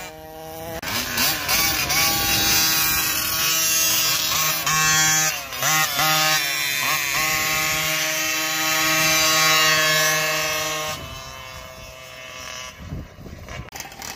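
Small two-stroke engine of a GoPed kart revving up and down several times, then holding a steady high pitch before it drops away about eleven seconds in.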